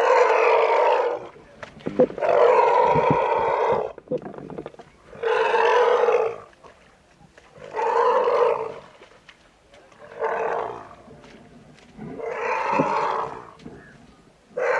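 Asian elephant calf bellowing over and over, six loud calls of about a second each, a couple of seconds apart: distress calls of a calf stuck in mud and being hauled out with a strap.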